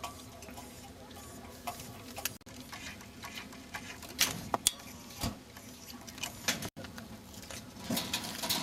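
Hydraulic cutter working at a chain-link fence: scattered sharp clicks and snaps over a steady low hum.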